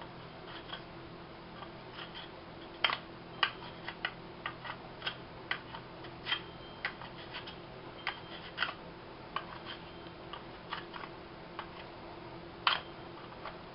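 Hand carving tool cutting into hard, dry sycamore: irregular sharp clicks as the blade snaps out small chips, a few a second, over a steady low hum.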